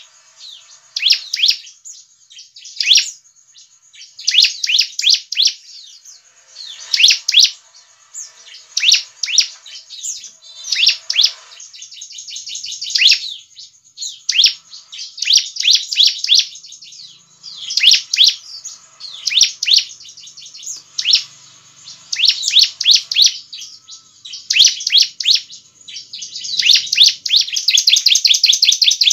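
Bar-winged prinia calling in quick chattering bursts of high notes, one burst every second or two, with a longer run of notes near the end.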